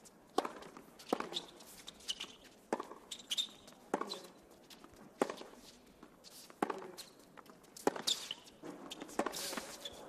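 Tennis rally on a hard court: a serve and then a string of sharp racket-on-ball strikes, roughly one every second and a quarter, alternating between the two players. Short high shoe squeaks on the court surface come between the hits.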